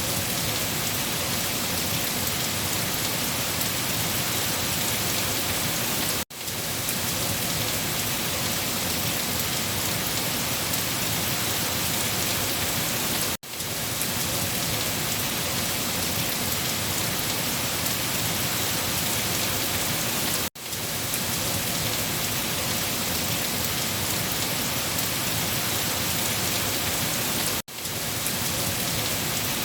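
Steady rain falling, an even hiss of rain on a surface. The sound drops out for a split second about every seven seconds, four times.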